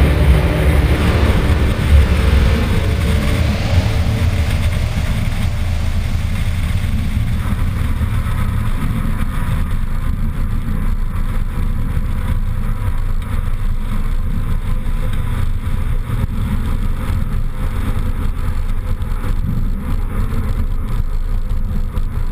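Cessna 150 Aerobat's four-cylinder engine and propeller running steadily while the plane rolls on the ground, heard with wind noise on the camera. The sound changes character about seven seconds in.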